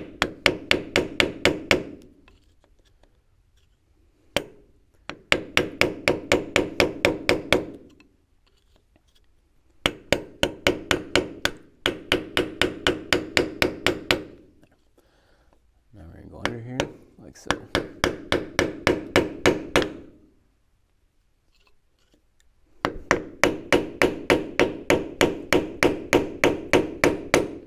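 A cut-down reciprocating-saw blade, held in the hand, sawing back and forth across the steel wear sleeve on a Bobcat skid-steer axle, about five strokes a second in five runs of a few seconds each with short pauses between. The cut puts a thin spot in the sleeve so it can be broken off the axle.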